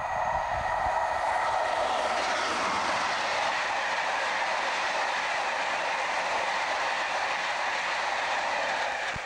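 Locomotive-hauled passenger train passing close by at speed: a loud, steady rush of wheel and rail noise as the coaches go past.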